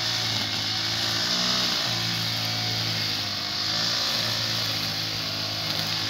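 Backpack brush cutter's engine running steadily as it cuts grass, its pitch wavering slightly.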